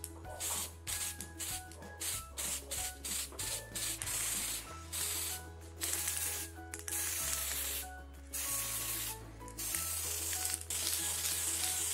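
Aerosol can of Wilton Color Mist silver food-colour spray hissing: a quick series of short sprays, then longer sprays of a second or more, misting colour onto a cake. Background music plays under it.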